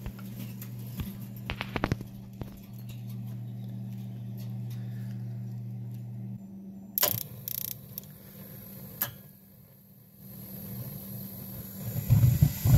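Carrier BWB cast-iron gas boiler going through its ignition sequence: a steady hum that stops about six seconds in, a few sharp clicks as the board initiates the spark, then the burners light with a loud low rush near the end.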